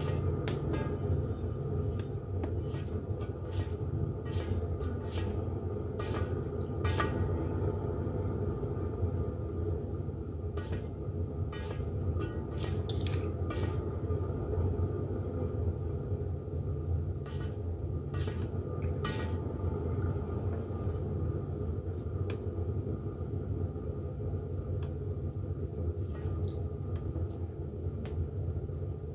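Pottery wheel running with a steady low rumble and hum while a tall jug of wet clay is thrown on it. Irregular sharp clicks and taps come from hands and a wooden rib working the spinning clay.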